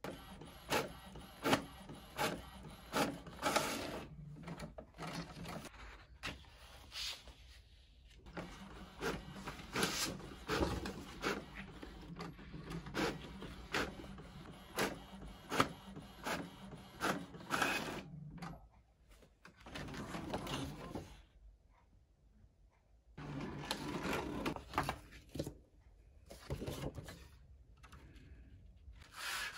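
Epson inkjet printer printing on kraft cardstock: the print head passes back and forth and the paper feed clicks, in bursts with short pauses.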